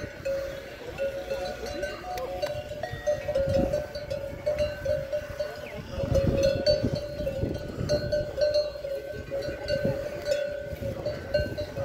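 Livestock bells clanking and ringing almost without a break. Low rumbles of wind on the microphone come and go, strongest about six seconds in.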